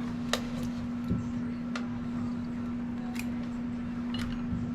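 Light, sharp clicks and taps, about five spread over a few seconds, from parts and tools being handled while fitting a carburetor into a motorcycle, over a steady low hum.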